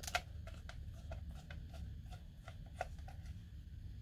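Faint clicks and scrapes of hands working on a plastic RC remote control, unscrewing its battery cover with a small screwdriver, several small ticks a second.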